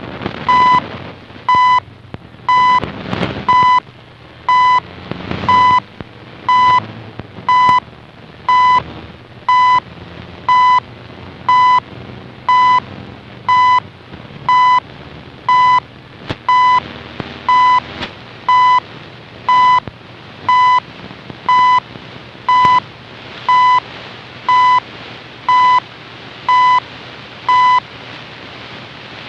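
CHU Canada shortwave time signal received on a Raddy RF320 portable shortwave radio: a short beep marks each second, once a second, over steady radio static.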